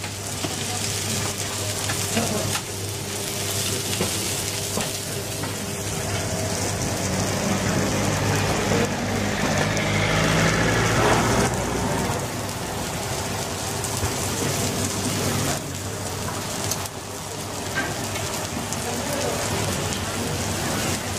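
Fish fillets sizzling on a hot flat-top griddle: a steady frying hiss, with a low steady hum underneath.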